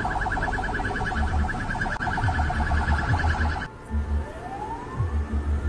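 Emergency siren: a fast pulsing two-pitch alarm tone, then, after a cut about three and a half seconds in, a siren wail rising slowly in pitch. Irregular low thuds run underneath.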